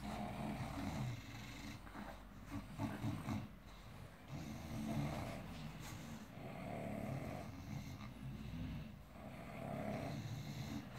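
English bulldog snoring in slow, regular breaths about every two seconds.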